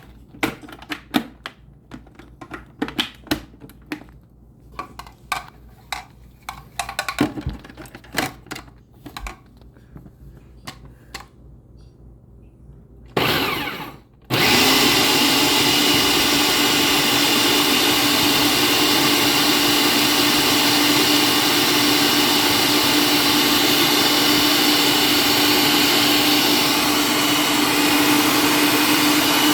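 Scattered clicks and knocks for the first dozen seconds. Then an electric blender gives a short burst, stops for a moment, and starts again about 14 seconds in, running loud and steady as it purées the grilled tomatoes and peppers into salsa.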